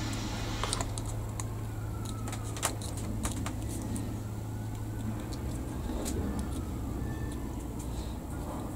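Scattered light clicks and taps of a small plastic model-kit part being handled, over a steady low hum.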